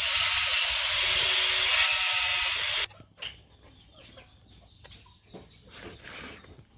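Loud, rough scraping hiss of abrasive work on steel that cuts off suddenly about three seconds in. Faint chicken clucking follows.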